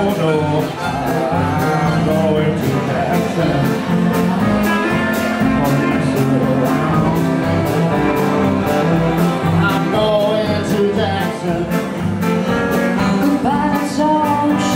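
Live band playing a country rock-and-roll number: electric and acoustic guitars with harmonica over a steady beat.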